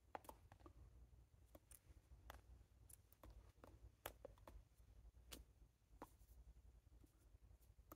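Near silence: low room hum with faint, irregular clicks and taps, about a dozen spread unevenly, from a person signing silently.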